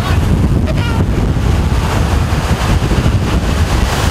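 Tornado-strength wind buffeting the chase vehicle and the microphone: a loud, steady rush with a heavy low rumble.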